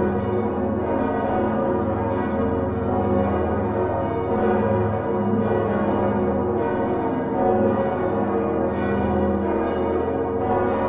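Many large swinging church bells of the Utrecht Dom tower, including the 1505 Geert van Wou bells, ringing together in a dense, unbroken peal. The strikes overlap without pause over a deep, steady hum from the heaviest bells.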